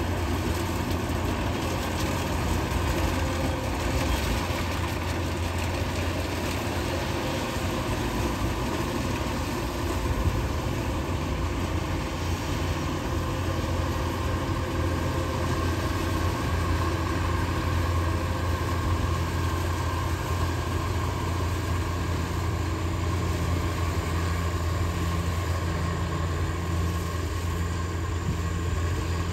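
Kubota DC-105X combine harvester's diesel engine running steadily as the machine cuts rice: an even, low drone with a mechanical whir over it.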